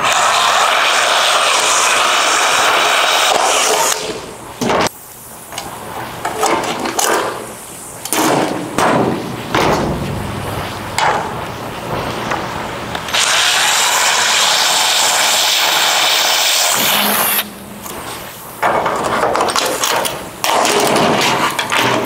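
Cordless drill boring holes through a sheet-steel patch panel and car roof in three long runs. Between the runs come short knocks and clatter as clecos and clamps are fitted.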